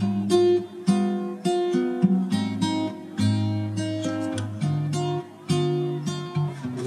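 Background music: a plucked and strummed acoustic guitar tune, with a new note or chord about every half second over a low bass line.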